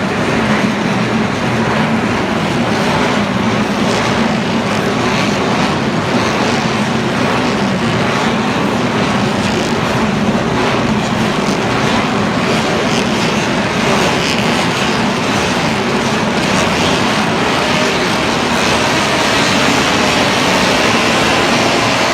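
Historic motorcycle engine running loud and steady.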